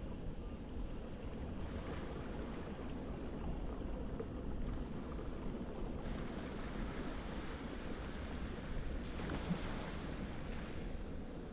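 Steady rushing of wind and surf, with a low rumble of wind on the microphone, swelling slightly now and then.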